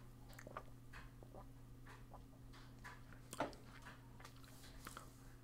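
Near silence: faint mouth clicks from sipping and tasting a drink, one a little louder about three and a half seconds in, over a low steady hum.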